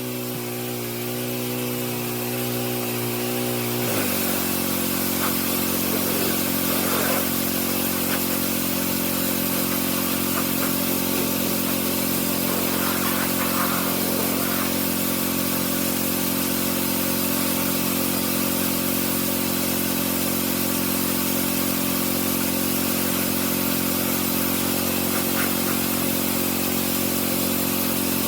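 Small engine of a roughly 20-year-old pressure washer running steadily, with a hiss above it. About four seconds in its pitch drops and holds lower, as it takes the load of spraying.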